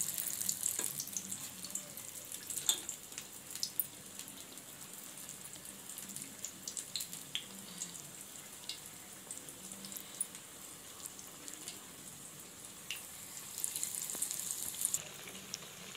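Corn vadai frying in hot oil in a kadai: a hissing sizzle with scattered pops and crackles, louder at the start and again near the end, fainter in between.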